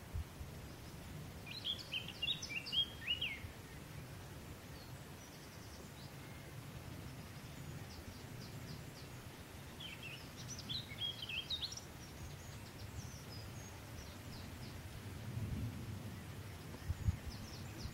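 A songbird singing in two short bursts of quick high chirps, about two seconds in and again about ten seconds in, over a steady low rumble that grows near the end.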